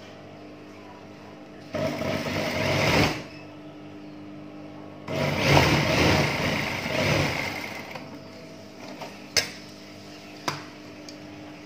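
JUKI industrial sewing machine stitching trouser fabric in two runs, the first about a second and a half long and the second about three seconds, with a steady hum in between. Two sharp clicks follow near the end.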